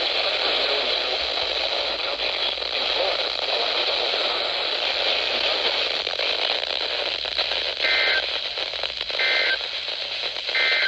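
Weather radio receiver hissing with static on a weak signal. Near the end, three short bursts of SAME alert data tones (the two-tone digital header that opens an emergency alert) break through the static, about a second and a half apart.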